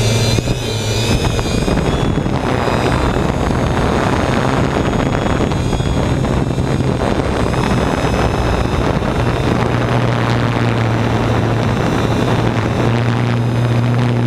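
Motors and propellers of a 3DR Quad-D quadcopter humming steadily in flight, heard from the GoPro mounted on the drone, over a dense rush of air noise.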